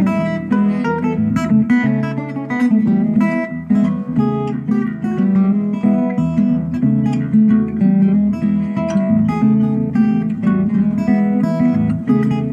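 Resonator guitar played unaccompanied, with a steady run of plucked and strummed chords and single notes.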